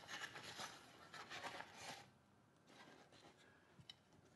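Faint rubbing and scraping of hands handling a camera rig, dying down after about two seconds, then a few light clicks.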